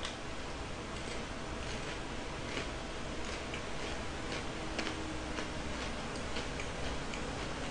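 Faint, close-up chewing of a crisp KitKat wafer bar: small irregular clicks and crunches from the mouth.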